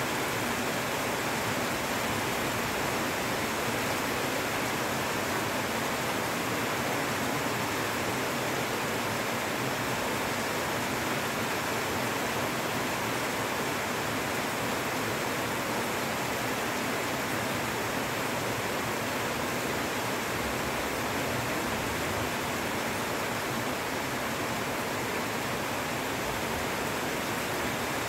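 Intense heavy rain falling steadily: a dense, even hiss that does not change.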